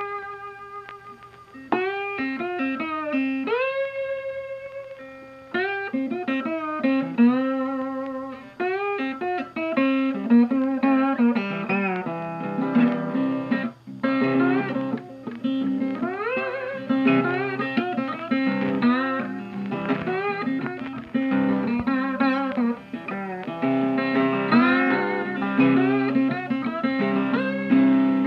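Background music: a plucked guitar tune with many sliding notes.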